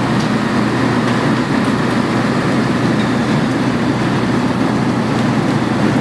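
Heavy engine running steadily: a constant low hum under a dense rumble.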